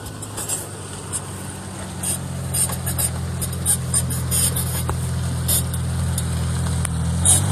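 A 4x4 SUV's engine running steadily and growing louder as it drives up toward the stuck pickup, with scattered crackles over it.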